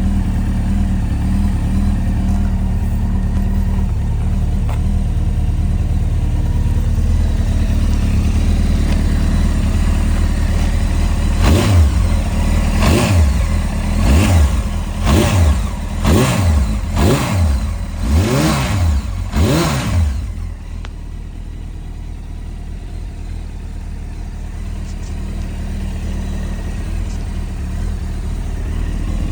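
Honda CBR900RR SC33 Fireblade's inline-four engine idling steadily, then revved in about eight quick throttle blips, roughly one a second, each rising and falling back. After the blips it drops to a quieter idle that slowly picks up again toward the end.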